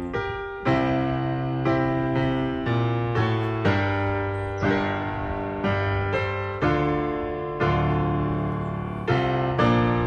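Background piano music: slow, soft notes and chords struck about once a second, each ringing and fading.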